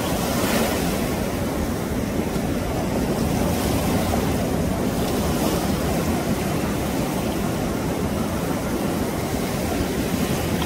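Surf breaking and washing over a sandy beach in a steady rush, with wind blowing on the microphone.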